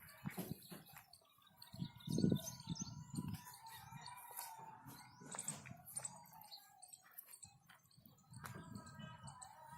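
Faint bird chirps with scattered low knocks, the loudest about two seconds in.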